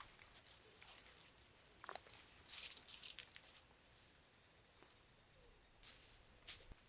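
Faint rustling and scraping of hammock webbing straps being wrapped around a tree and fastened, with a few short sharp ticks and a louder rustle a little over two seconds in.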